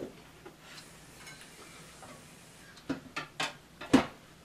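A few sharp metal clicks and knocks of a theater seat's metal leg piece being picked up and fitted against the seat frame, the loudest about four seconds in, after a quieter stretch of faint handling.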